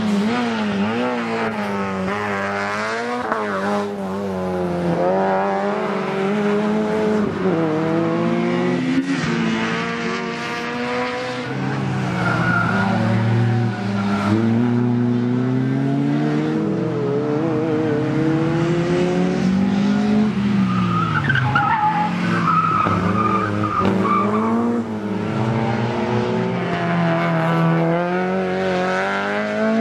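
Small race cars' engines revving up and falling back again and again through gear changes as they are driven hard around a track, with tyre squeal in the corners twice in the middle.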